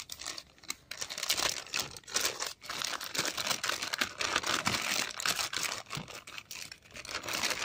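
Clear polythene bag crinkling and rustling in irregular crackles as it is handled and a phone mount is pulled out of it.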